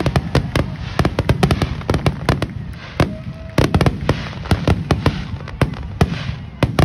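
Aerial fireworks display: a rapid, unbroken barrage of shell bursts, with sharp bangs and crackles coming several times a second.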